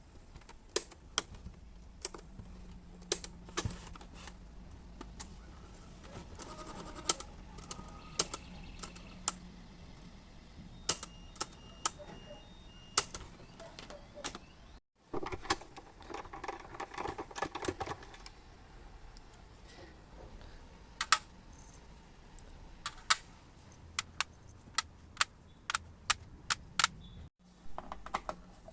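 Irregular sharp clicks and light metallic rattling, as of small tools and metal parts handled during repair work. The sound breaks off abruptly twice.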